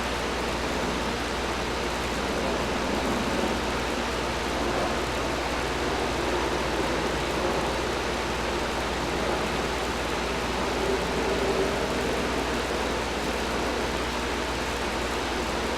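Air conditioner running steadily: an even rush of moving air with a constant low hum underneath.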